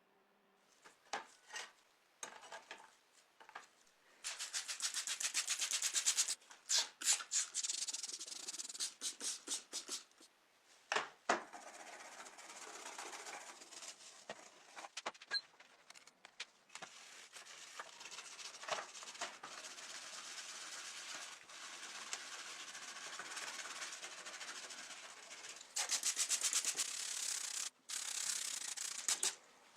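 Hand scrubbing with an abrasive on the rusty metal body of a die-cast toy car, rubbing off rust and old paint. It comes in runs of fast, rapid back-and-forth strokes with short pauses and an occasional knock.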